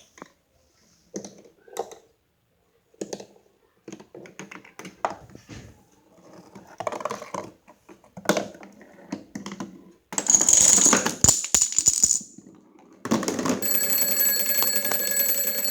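A marble and dominoes in a homemade cardboard-and-track chain-reaction machine make a run of irregular clicks, knocks and rattles. About ten seconds in comes a loud noisy clatter lasting two seconds or so. From about thirteen seconds an electric alarm clock bell rings loudly and steadily, set off when a metal ball drops between two wires and completes the circuit.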